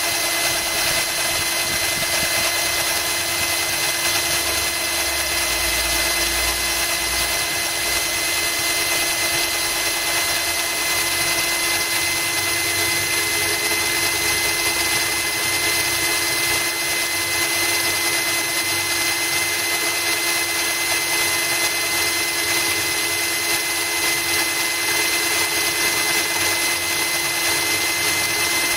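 Cordless drill running at a steady speed with a constant whine, its bit grinding into glass while water from a garden hose trickles over the cut.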